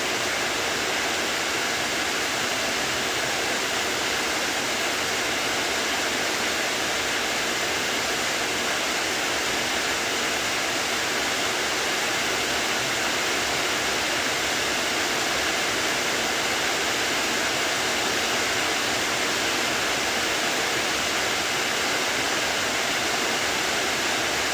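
Heavy rain falling, a steady unbroken hiss.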